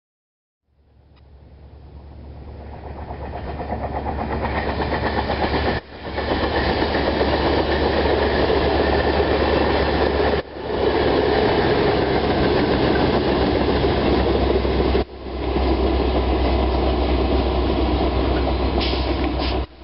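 Amtrak passenger train passing, a steady rumble of wheels on rail over a low drone. It fades in about a second in and builds to full level, dipping sharply and recovering three times.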